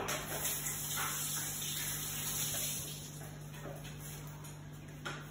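Water running from a tap, a steady rush of spray that eases off after about three seconds.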